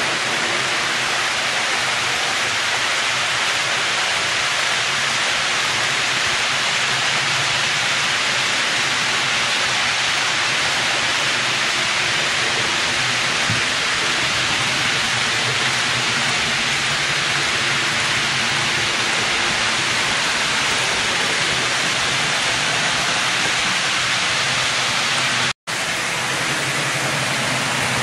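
HO-scale model freight train rolling over the layout's track: a steady hissing rumble of wheels on rails. It drops out for an instant near the end.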